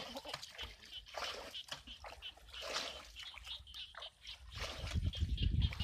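Hands splashing and sloshing in shallow muddy water while groping for fish, a run of short, irregular splashes.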